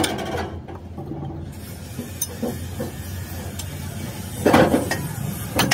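Hand tools working the bolts of a truck's driveshaft flange at the differential: metal scraping and a sharp click near the end, over a steady low hum.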